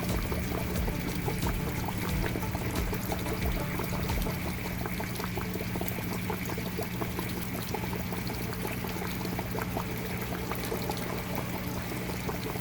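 Water pouring and splashing steadily into an aquaponics swirl-filter barrel, with a low steady hum underneath.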